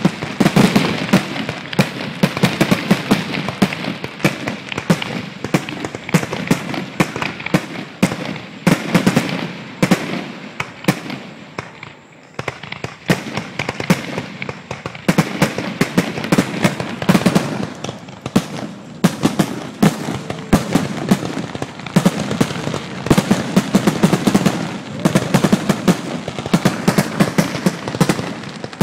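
Fireworks finale: a dense, rapid run of bangs and crackling shells, thinning briefly about twelve seconds in before picking up again.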